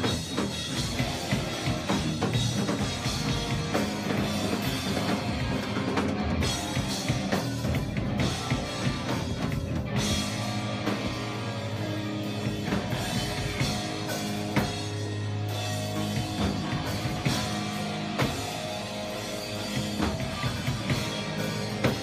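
Live rock band playing, with a drum kit and electric guitars.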